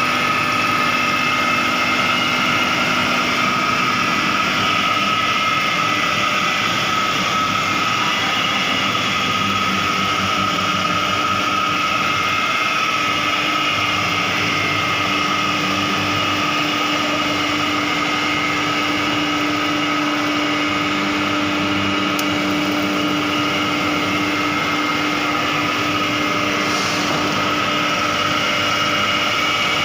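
Gas-fired thermal oil heater running under test: a steady burner and blower noise with a constant high whine and a lower hum.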